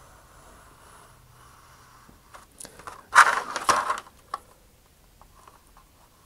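Hobby knife blade scoring thin vacuum-formed plastic sheet: a few short scratches, then a scraping stroke of about a second in the middle, with one more scratch just after.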